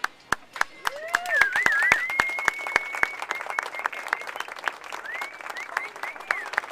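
Small audience applauding with scattered hand claps. A brief cheer comes about a second in, then a long high whistle, and shorter rising whistles near the end.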